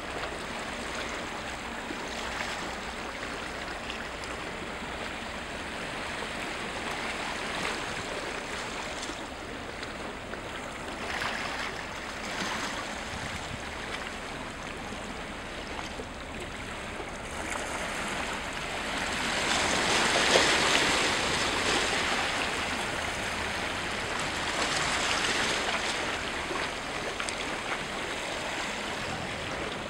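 Sea water lapping and splashing in small waves, a steady wash that swells into louder splashing about two-thirds of the way through, with a smaller surge shortly after.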